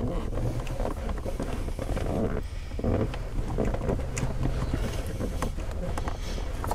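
Rustling and small plastic clicks of a hand working a cloth-taped wiring harness and a stuck electrical connector at the blower motor fan resistor under the dashboard, over a low steady hum.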